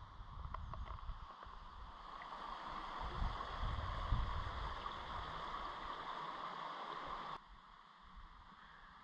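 Shallow river rushing steadily over stones, with low wind buffeting on the microphone. The water sound cuts off abruptly near the end, leaving a much quieter outdoor background.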